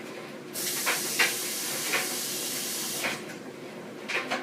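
Tap water running for hand washing: a steady hiss that starts about half a second in and cuts off sharply after about two and a half seconds, with a few light taps over it.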